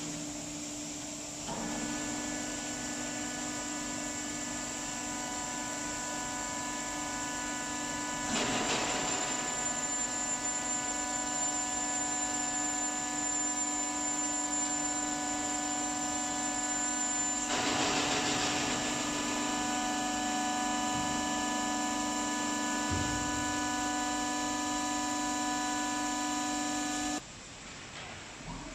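Motors and hydraulics of a multi-daylight plywood hot press line with automatic loader running with a steady whine of several held tones over a low hum, broken twice by a short rush of noise about nine seconds apart. The sound stops abruptly near the end.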